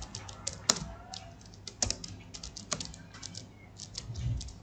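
Computer keyboard keys clicking as text is typed: irregular keystrokes in quick little runs with short pauses between words, a few strikes louder than the rest.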